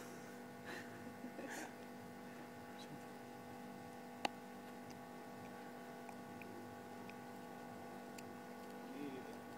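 A faint, steady hum, with a single sharp click about four seconds in.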